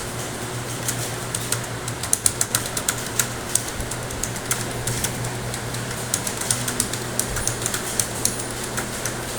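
Computer keyboard keys being typed on in quick, irregular clicks, densest about two to three seconds in, over a steady low hum.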